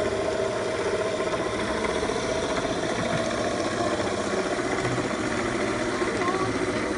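Homemade electric spinning wheel (e-spinner) running steadily, its electric motor driving the spinning flyer and bobbin as yarn winds on, giving a constant mechanical hum.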